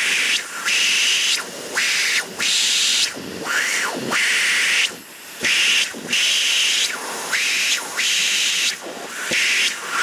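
Vacuum cleaner sucking through its metal wand, the nozzle pushed on and off a hole in the carpet so the rushing air noise keeps cutting out and coming back in an uneven rhythm, roughly every half second to a second. Short rising and falling whines sound as the opening seals and unseals.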